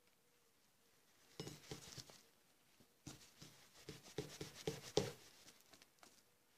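Dry microfibre cloth rubbing and buffing a freshly silver-plated metal object, in short scuffing strokes. The strokes come in two spells, one about a second in and one from about three seconds in, and the last stroke is the loudest.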